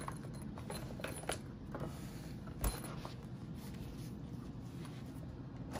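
Quiet handling noise of a soft padded pistol case being lifted out of its cardboard box and opened: faint rustles and small clicks, with one sharper knock about two and a half seconds in.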